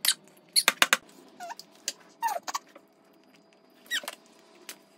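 A nine-month-old baby making short high-pitched squeals, three or four of them, each falling in pitch, with several sharp little clicks in the first second.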